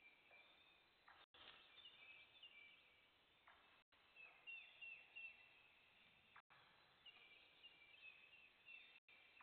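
Faint birdsong: several songbirds singing short, falling chirps over one another, with the sound cutting out for an instant about every two and a half seconds.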